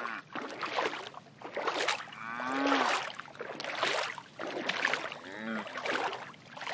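A white cow licking and chewing at a metal pipe, with steady noisy rustling and two short calls that rise and fall in pitch, about two and a half and five and a half seconds in.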